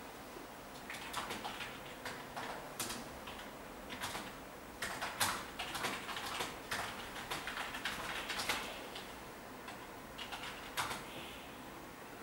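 Handling noise from a black suede high-top sneaker being turned over in the hands: irregular soft clicks, taps and rustles, most frequent in the middle.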